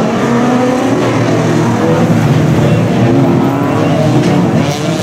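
Engines of several banger racing cars running and revving together, loud and continuous, their pitches wavering and overlapping.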